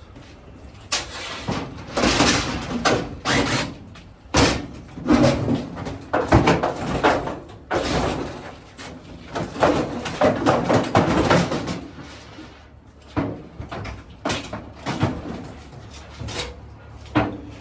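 Sheet-metal dryer cabinet panels being handled and pulled off, with irregular bangs, scrapes and rattles.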